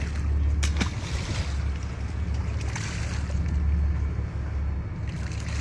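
Fishing boat under way: a steady low engine rumble with wind on the microphone and sea wash, and a brief knock about a second in.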